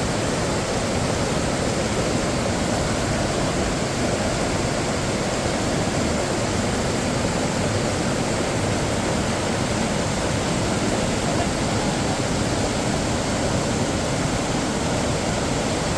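Waterfall rushing steadily, a loud, even wash of falling water.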